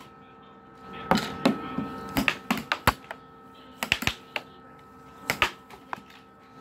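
Air hockey puck and plastic mallets clacking in a fast rally: about a dozen sharp hits in quick clusters off the mallets and the table's rails, over a faint steady hum.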